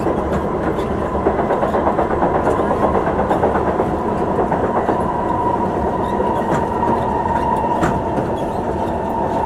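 Singapore MRT train running at speed, heard from inside the carriage: steady wheel-on-rail rumble with a constant high whine.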